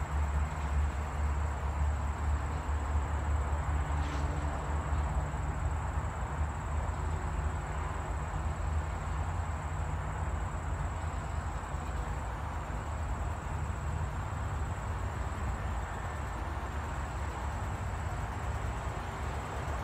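Steady low rumble of background noise with a thin, faint high whine running through it.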